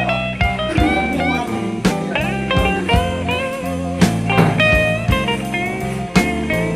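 Background music: a blues-rock tune with guitar, including slide guitar, over a steady drum beat.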